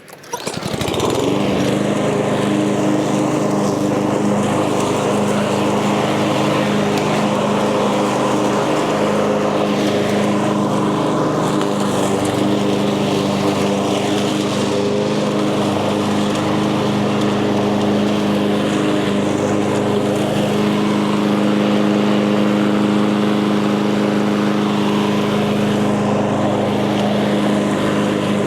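Echo gas walk-behind lawn mower engine starting up within the first second, then running at a steady speed.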